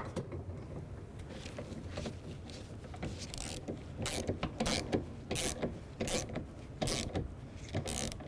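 Hand ratchet with a 10mm socket clicking in short strokes as it snugs the nuts clamping the window regulator to the door glass. The clicks start about three seconds in and come in a string of about eight, half a second to a second apart.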